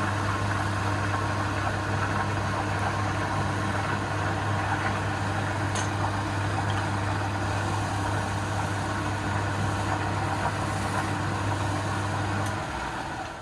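Electric wood lathe running with a steady motor hum, switched off near the end and quickly dying away.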